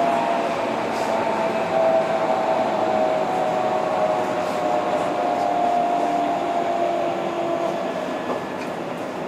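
Keihan 3000 series electric train running at speed between stations, heard from inside the passenger car: a steady rolling rumble of wheels on rail with a few faint held tones. It eases off slightly near the end.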